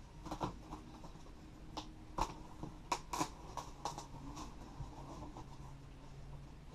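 Cardboard boxes and packaging being handled and shifted: scattered knocks, scrapes and rustles, a dozen or so irregular taps, loudest about two and three seconds in.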